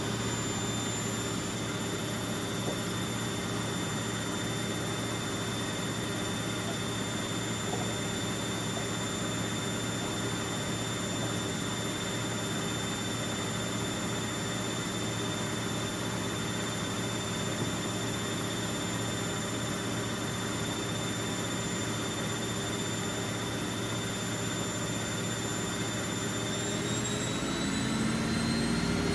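Bauknecht WA Aquaton 1400 front-loading washing machine running a spin, its motor giving a steady whine over the rush of the turning drum. Near the end the pitch starts to rise as the drum speeds up.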